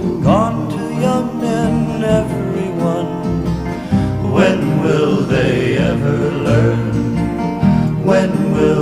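Music: the end of a folk song with plucked guitar, stopping abruptly at the very end.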